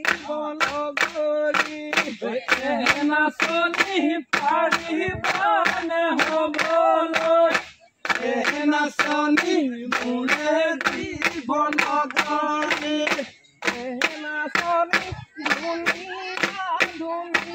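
Voices singing a Bihu folk song together, over sharp, regular claps about three a second that keep time for the dance. The singing and claps break off briefly about eight seconds in, and again a few seconds later.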